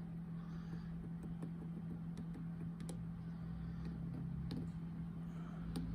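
Faint, scattered ticks and clicks of a lock pick working the pins inside a Brinks deadbolt's cylinder as the pins are set, over a steady low hum.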